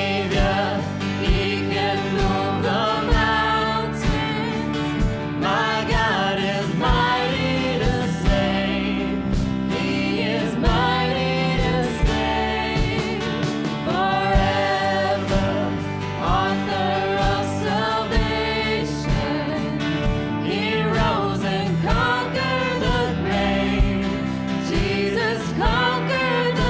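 Contemporary Christian worship song: a sung vocal melody over a band with sustained chords and a steady drum beat.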